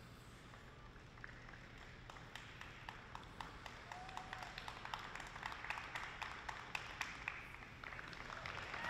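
Scattered hand clapping from a small audience, starting about a second in and growing into denser applause.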